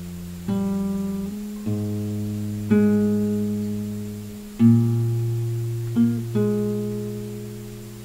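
Acoustic guitar played slowly, about six plucked chords in all, each left to ring and fade out before the next. The strongest comes a little past the middle.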